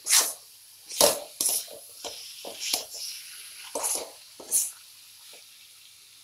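Perforated metal spatula scraping and knocking against a metal kadhai while stirring chunks of potato and pointed gourd through a thick masala: about ten sharp strokes over four and a half seconds, then the stirring stops.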